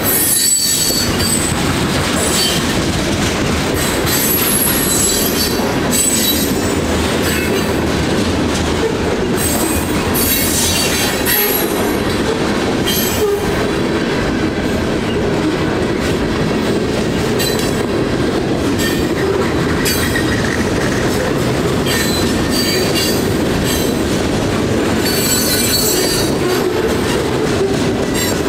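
Freight train rolling past close by: a steady rumble of steel wheels on the rails, with short high wheel squeals every few seconds.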